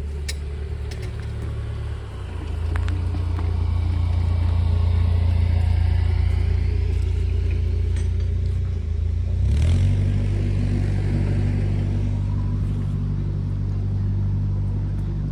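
Narrowboat's diesel engine running close by with a steady low hum. The engine note swells about two seconds in and changes pitch again near the ten-second mark.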